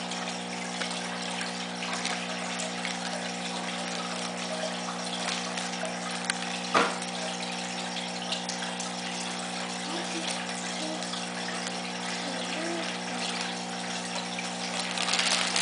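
Aquarium pump humming steadily over a constant splash of moving water, with one sharp click about seven seconds in.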